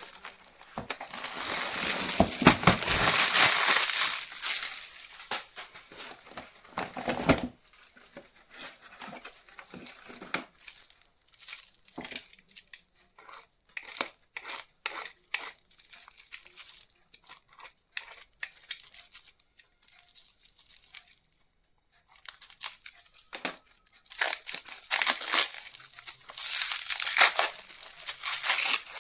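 Keyboard packaging being crinkled and torn open by hand: loud dense crackling for the first several seconds, then scattered light clicks and rustles, then more crackling and tearing near the end.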